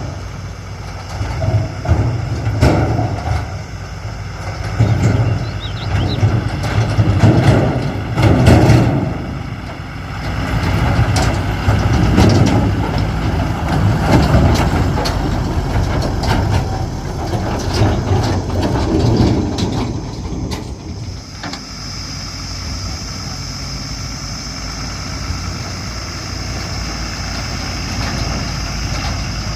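Diesel engine of a backhoe loader working, revving up in repeated surges as it digs and loads, with some knocks. About two-thirds of the way in it settles to a steadier run with a thin high whine.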